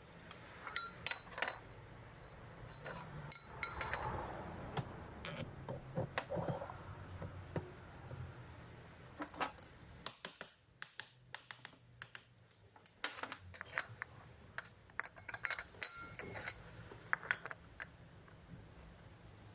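Small metal parts of a concrete mixer motor clinking and tapping against each other as they are handled and cleaned, in irregular light knocks.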